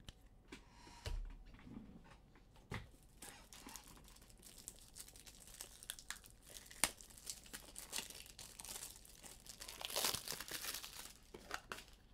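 Trading-card pack wrappers being crinkled and torn open, with scattered light clicks. The crinkling is loudest near the end, and there is a soft low bump about a second in.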